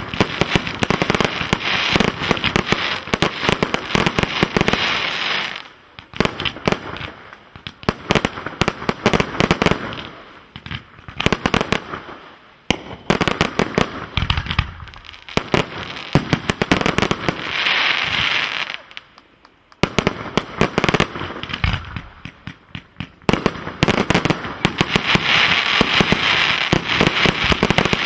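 Professional firework display with cakes and aerial shells firing in quick succession. Dense waves of sharp bangs and crackling are broken by a few brief lulls.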